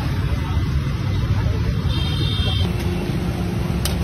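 Steady rumble of city road traffic, with a brief high-pitched beep about two seconds in.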